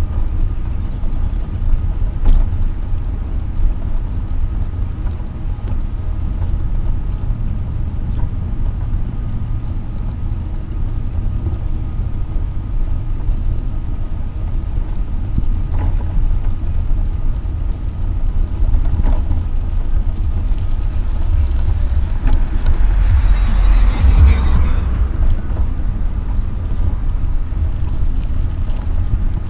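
Invacare TDX SP power wheelchair driving along an asphalt road: a steady low rumble from the wheels and the chair-mounted camera shaking, with a faint steady whine and a few small knocks. A louder rushing swell rises and fades about three quarters of the way through.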